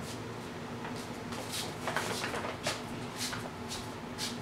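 Faint scattered rustles and soft knocks from someone handling and carrying a bag off to the side, over a steady low hum.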